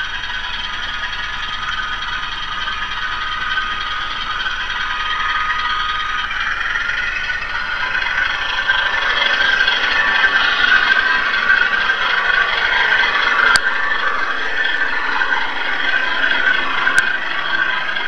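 HO scale Walthers Proto 2000 PA and PB diesel models running, their MRC 1803 sound decoders playing diesel engine sound through small speakers, mixed with the close clatter of the model's wheels on the track. The running noise grows louder and rougher about seven seconds in, with two sharp clicks in the second half.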